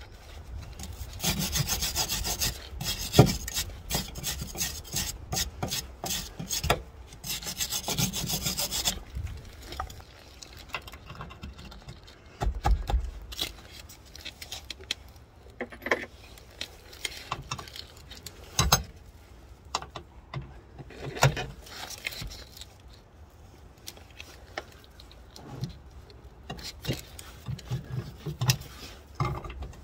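Rapid rasping strokes of a hand tool scraping on rusty metal for several seconds, then scattered clicks and knocks of hand tools being fitted to the rusted bolts of a car's rear suspension arm.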